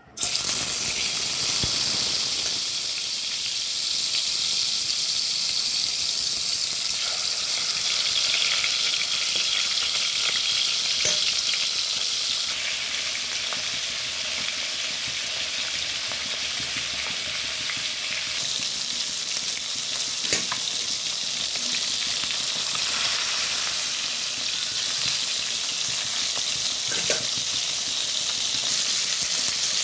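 Spice-coated fish pieces shallow-frying in hot oil in a pan, a steady loud sizzle that starts suddenly as the first piece goes into the oil, with a few sharp pops of spitting oil.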